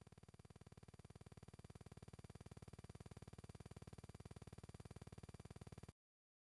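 Near silence: a very faint, rapid pulsing buzz that slowly grows a little louder, then cuts to dead silence near the end.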